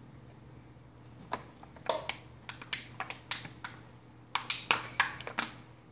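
Aluminium soda can crackling and clicking as it is squeezed and tipped to get out soda that has frozen inside it. The clicks are sharp and irregular, a few at first and then a quick run, starting after about a second and a half.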